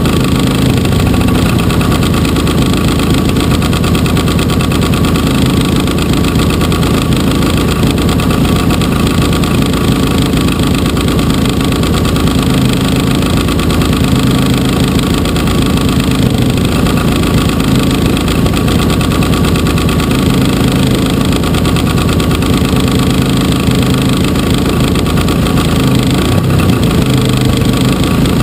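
Engine of a 60%-scale RC Piper Cub idling steadily on the ground, heard right beside the cowl with its propeller turning.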